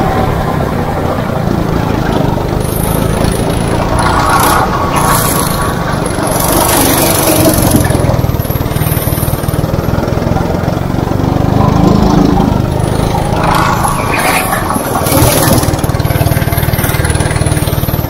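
Go-kart's small petrol engine running hard under the driver's seat, its note rising and falling through corners and straights, with bursts of rushing noise about four seconds in and again near the end.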